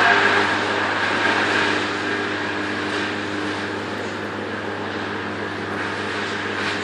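An engine running steadily, louder at first and easing down over the first couple of seconds, then holding an even idle-like note.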